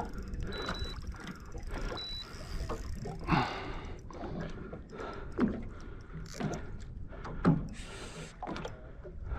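Short, irregular bursts of an angler's heavy breathing while playing a pike from a boat, over a low steady background of boat and water noise. There are two brief high beeps in the first couple of seconds.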